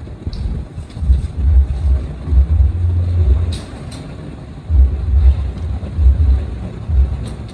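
Handling noise from unfolding a tripod stand: irregular low rumbling bumps, with sharp clicks about three and a half seconds in, again just after, and once near the end.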